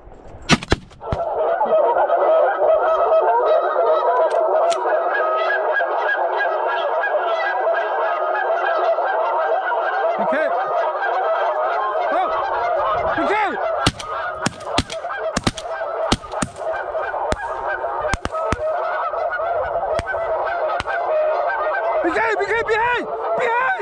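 A flock of geese honking, many calls overlapping, starting about a second in and going on without a break. A series of sharp clicks comes through in the middle.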